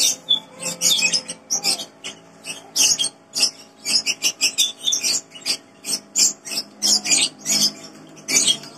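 Close-up chewing and crunching of crisp raw fruit: a quick, irregular run of sharp crunches, about two to three a second.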